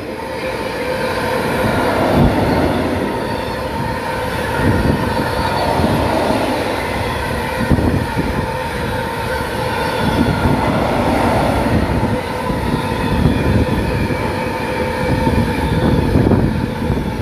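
Freight train of GATX tank wagons rolling past at close range: a continuous rumble of wheels on rail with repeated uneven knocks as the wheels pass, and a steady whine running under it.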